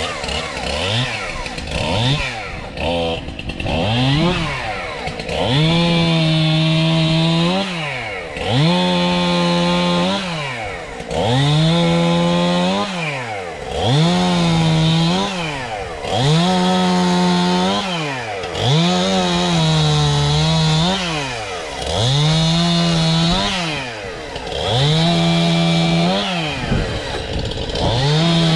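Two-stroke chainsaw revved hard over and over: each time it climbs quickly to full throttle, holds for about a second, then drops back toward idle, about every two seconds. The first few seconds hold shorter, quicker blips.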